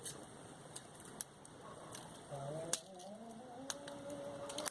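Small sharp clicks and taps as the cells and metal casing of a cut-open 9V battery are handled, about half a dozen spread irregularly, with a faint low hum in the second half.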